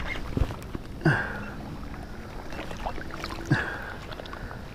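Water sloshing and swishing through weeds in a slow rhythm, about once every two and a half seconds, as a person moves through weedy pond water.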